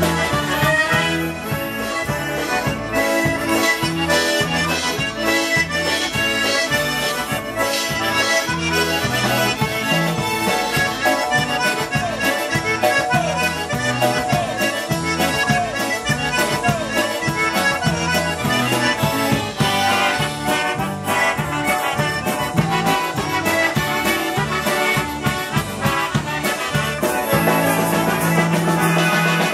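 Live polka band playing a polka: accordion and concertina lead over trumpets, electric bass and drums, with a steady oom-pah bass beat.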